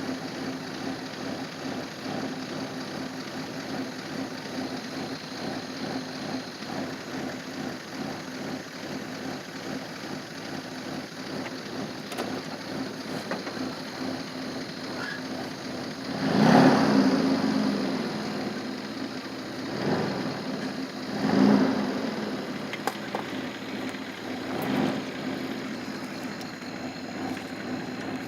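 A vehicle's engine idling steadily, heard from inside the vehicle. Thunder rolls over it from about two-thirds of the way in: one loud clap that rumbles on for a couple of seconds, then three weaker rolls.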